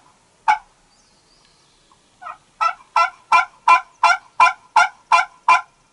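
Wild turkey yelping: one yelp about half a second in, then an even series of about ten yelps at roughly three a second.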